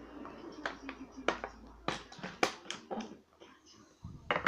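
Lock-picking tools clicking and tapping in a pin-tumbler rim cylinder as it is picked: a run of sharp, irregular clicks, about two a second.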